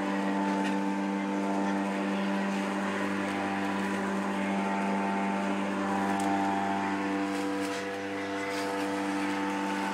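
Corded electric rotary lawnmower running with a steady motor whine as it is pushed over the grass, dipping slightly in level about eight seconds in.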